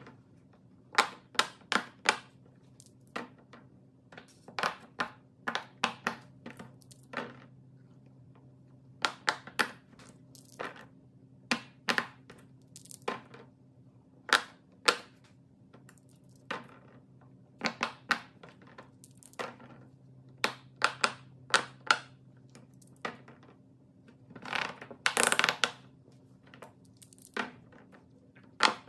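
Silicone pop-it bubbles pressed one at a time with fingertips, giving sharp single pops at irregular intervals. About 25 seconds in, a longer run of clicks comes as dice rattle across the board's tray. A faint steady low hum lies underneath.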